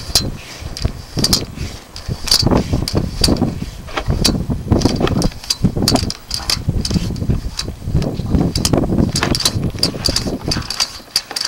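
Drain inspection camera's push cable being worked in a clogged drain line: irregular clicks and knocks over a low rumble, the clicks coming faster near the end, as the camera is pushed against the clog and fails to get past it.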